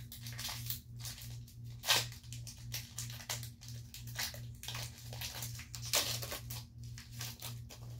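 Foil Pokémon booster pack wrapper crinkling and being torn open, with the cards inside handled, in irregular crackles. A low hum that pulses a few times a second runs underneath.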